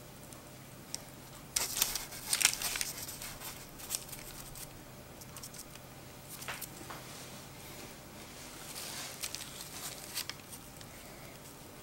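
Hands pressing and shaping soft yeast dough on a sheet of baking parchment, the paper rustling in a few short bursts.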